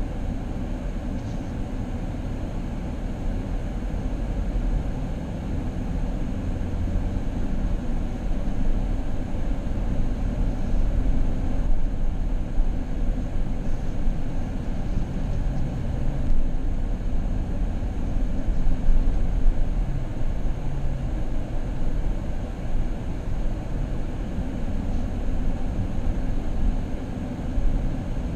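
A car heard from inside the cabin: a steady low rumble of engine and road noise.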